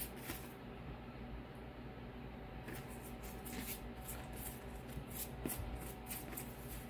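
Pastry brush stroking over the crust of a freshly baked loaf to glaze it: faint, soft brushing strokes in three short spells.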